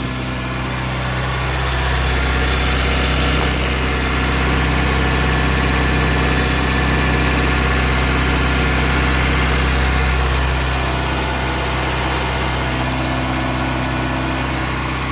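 Mazda Miata's four-cylinder engine idling steadily, with a rattle the owner cannot pinpoint. The car has a new clutch, throwout bearing and pilot bearing. The sound grows a little louder about two seconds in and eases back near ten seconds.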